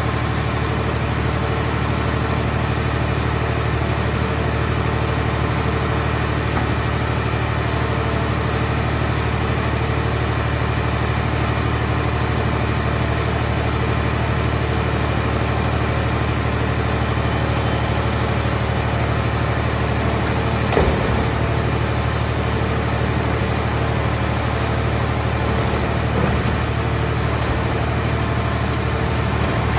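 The power unit of a mobile car baler runs steadily at a constant speed, with two brief metallic sounds about 21 and 26 seconds in.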